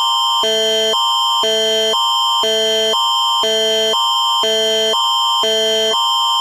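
Canadian emergency alert attention signal: an electronic tone that switches between a high chord and a lower chord every half second, over a constant high pitch, repeating without a break.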